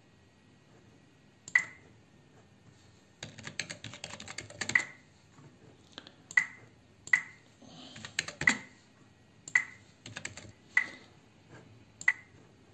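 Computer keyboard and mouse clicks: a quick run of typing about three to five seconds in, then single sharp clicks about a second apart.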